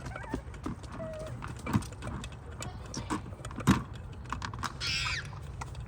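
Irregular light clicks and taps of hand tools and small metal parts being worked in an engine bay. There are two sharper knocks, one about two seconds in and another nearly four seconds in, and a brief hiss near the end.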